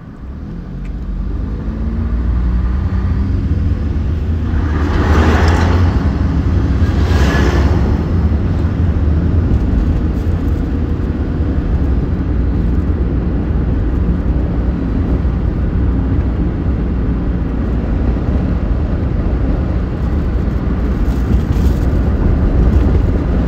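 Car cabin sound as the car pulls away from a stop: engine and road noise swell as it picks up speed, then settle into a steady low rumble of engine and tyres while cruising. About five and seven seconds in come two loud rushing swells.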